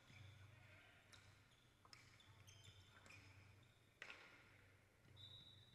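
Faint sharp cracks of indoor hockey sticks striking the ball, ringing briefly in a large hall, the loudest about four seconds in, over a low steady hum. A short high steady tone comes in near the end.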